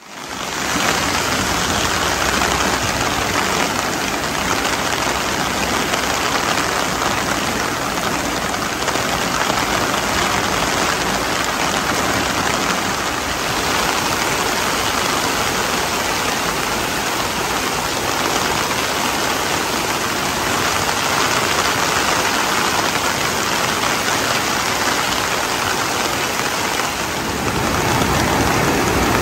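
Swollen, muddy river in flood rushing fast and turbulent down a concrete channel: a loud, steady roar of churning water, the sign of a river running high after heavy rain. It grows a little louder and deeper near the end.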